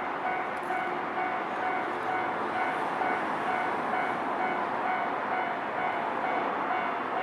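Japanese level-crossing warning bell ringing in a steady, repeating pattern, over the steady rumble of a Nankai electric train running through the crossing.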